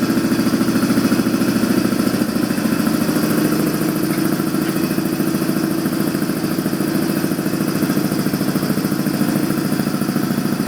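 Shop air compressor running steadily just after kicking on: a loud, even drone with a fast pulse.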